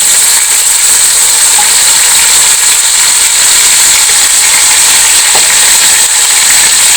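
Chicken pieces frying in hot oil with onions and spices in a cooking pot, a loud, steady sizzle.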